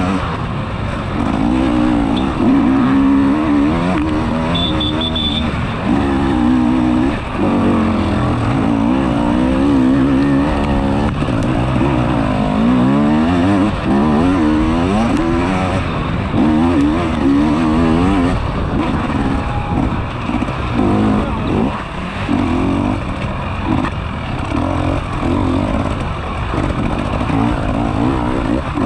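Enduro motorcycle engine under hard riding, revving up and dropping back over and over as the rider works the throttle and gears, with no pause.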